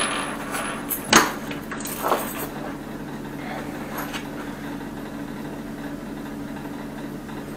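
A few sharp metallic clicks and knocks of tools and fittings from angle valve replacement work about a second and two seconds in, followed by a steady low hum.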